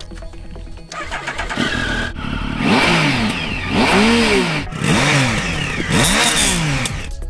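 2011 Triumph Speed Triple's 1050 cc inline three-cylinder engine, heard through its stock under-seat exhaust cans, revved up and let fall back four times in a row from a standstill.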